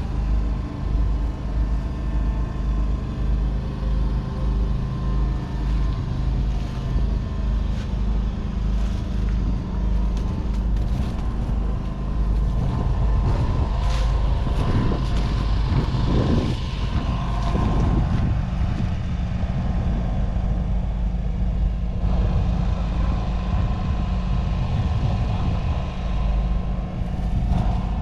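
Claas Arion 440 tractor's 4.5-litre four-cylinder diesel engine running steadily while ploughing, with a stretch of shifting pitch about halfway through.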